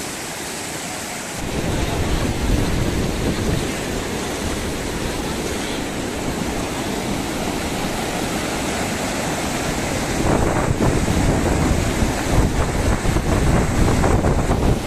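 Floodwater from an overflowing lake rushing and churning in turbulent waves, a steady loud rush of water. Wind buffets the microphone with a low rumble from about a second and a half in, gustier near the end.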